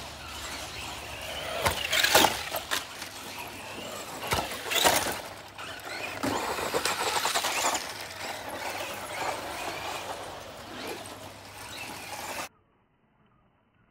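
Electric Tamiya RC buggies running on a loose dirt track, tyres churning and spraying soil, with several sharp knocks from bumps and landings. The sound cuts off abruptly near the end.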